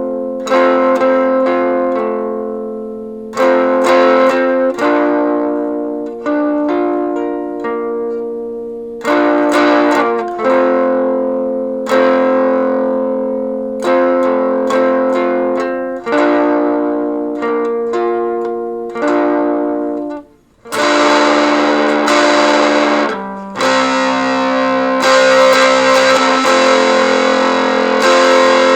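Chords strummed on an amplified stringed instrument, played through a small Acorn Amps Biz Card low-power amplifier into an old speaker. Each chord rings and fades for a second or two; about twenty seconds in, the playing turns to steady strumming with a denser, brighter tone.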